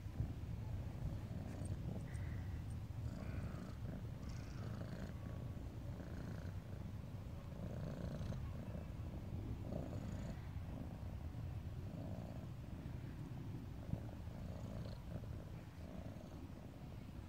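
Tabby cat purring steadily while being stroked, a low continuous rumble.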